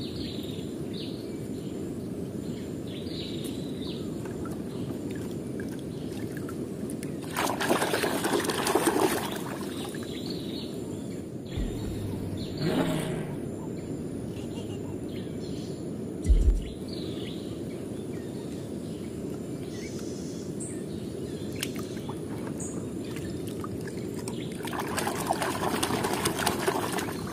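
Water sloshing and splashing in a plastic tub as a hand stirs it, over a steady rushing water noise. The splashing gets louder twice, about eight seconds in and again near the end.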